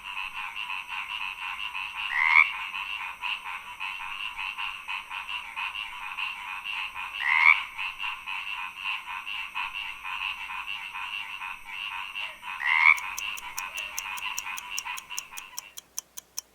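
Frogs calling in a dense, rapid chorus, with a louder rising call about every five seconds, three in all. A steady ticking joins for the last few seconds, and the chorus stops shortly before the end.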